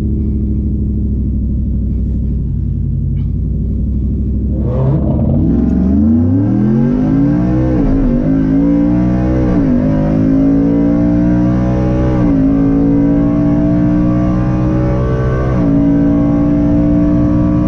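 Tuned Ford F-150's Coyote 5.0 V8 heard from inside the cab on a drag-strip pass. It holds steady at the start line for about five seconds, then launches, and the engine note climbs, dropping back at each of four upshifts.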